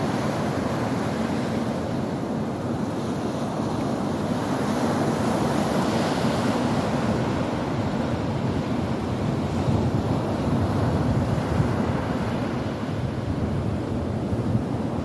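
Ocean waves breaking and washing ashore, a steady rush of surf that swells and eases a little.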